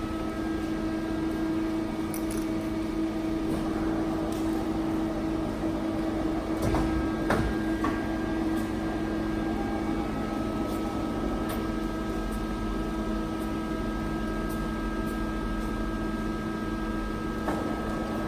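Johnford TC-35 CNC lathe running idle: a steady machine hum with several fixed tones, a few light clicks and a brief louder rattle about seven seconds in.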